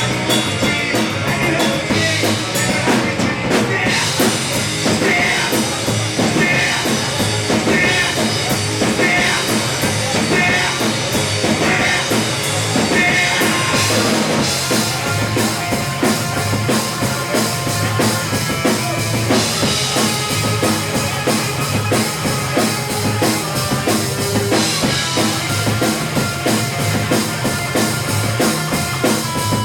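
Live rock band playing loud, fast rock: electric guitar and bass over a drum kit keeping a steady driving beat.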